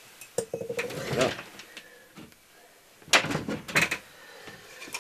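Handling noises from a heavy clay pot being lifted up: a few sharp knocks, then a rattle about three seconds in, with short voice sounds between.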